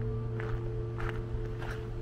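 Footsteps on cobblestones, three steps at an even walking pace, over a held music chord.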